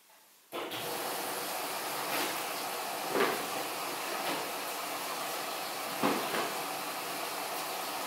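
Haier front-loading washing machine filling with water during its wash cycle: a steady rushing hiss that starts suddenly about half a second in, with a few brief swells.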